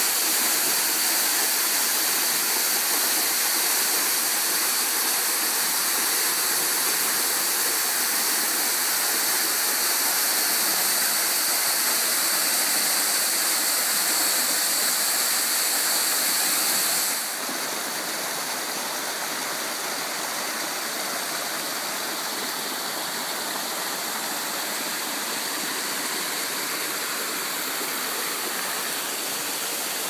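Waterfall plunging into a rock pool: a steady rush of falling water that drops a little in level about halfway through, then holds steady.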